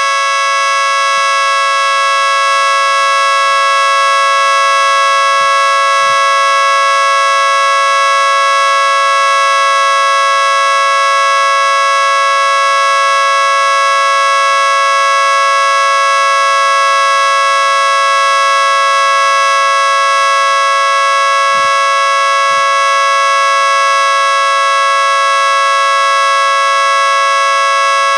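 Mini replica of a Federal Signal 3T22 three-tone siren sounding a loud, steady chord of tones that holds pitch without rising or falling: the steady Alert signal.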